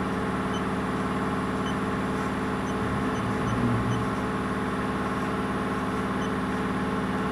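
Haas VF-11/50 vertical machining center running with its spindle turning at 1,000 RPM: a steady machine hum of several pitches, with a brief louder swell about three and a half seconds in.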